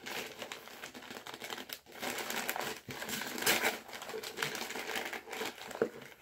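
Packaging being handled: an uneven crinkling and rustling broken by small clicks and taps, loudest about halfway through.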